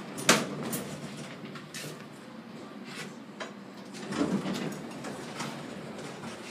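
Kone elevator car's sliding doors moving at a floor stop, with a sharp click about a third of a second in and a few softer clicks as the car's panel buttons are pressed.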